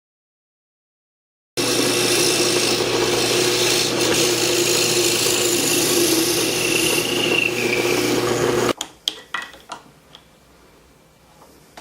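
A power tool starts about a second and a half in and runs steadily with a constant hum for about seven seconds while working wood, then cuts off suddenly. A few light knocks and taps follow.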